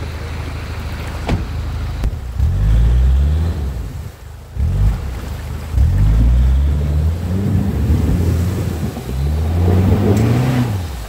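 Off-road 4x4 engine revving hard three times, its pitch climbing with each rev and dropping away between them, over a steady low running note.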